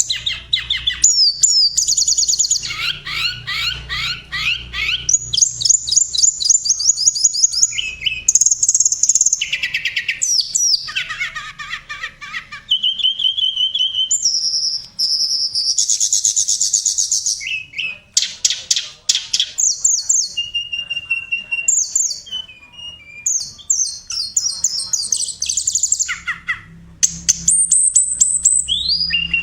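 A tledekan songbird singing continuously. It moves quickly between fast trills of repeated downslurred notes, clear whistled notes and rapid chattering phrases, with only short pauses between bursts.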